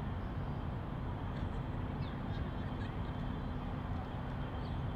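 Steady low background rumble with an even low hum, and a few faint short high chirps about two seconds in and again near the end.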